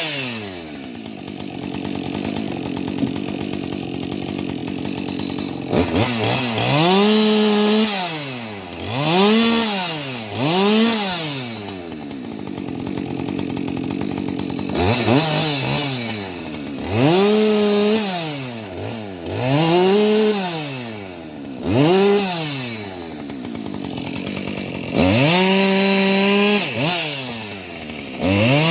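Two-stroke chainsaw idling, then revved to full throttle about nine times, each run held for a second or two before dropping back to idle, as in cutting firewood.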